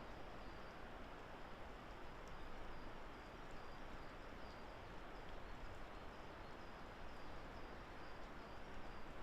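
Forest ambience after rain: a steady rushing hiss, with a faint series of short high chirps repeating about two to three times a second.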